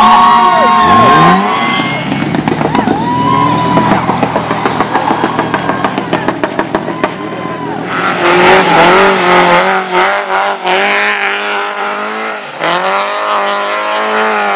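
Racing engines being pushed hard on a loose-surface track, their pitch sweeping up and down as they accelerate and lift off. A fast, throbbing run of engine pulses fills the middle. From about eight seconds in, several engines rev together.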